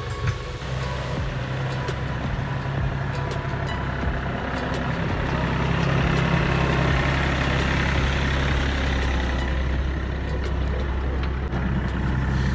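Kioti compact tractor's diesel engine running steadily, getting louder toward the middle and easing back near the end.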